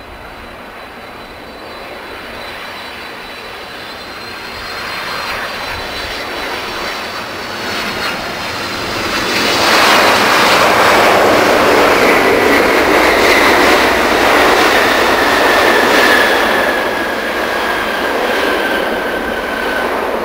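Boeing 767-300 jet airliner landing: the noise of its twin turbofan engines grows as it approaches, then turns much louder about halfway through as it touches down and passes close by. Through the rest, engine noise continues with a whine that slowly falls in pitch as the jet rolls out along the runway.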